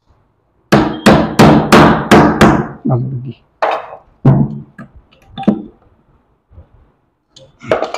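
Hammer driving temporary nails into a plywood sofa armrest to tack it onto the frame: a run of six quick blows, about three a second, then a few slower, spaced blows.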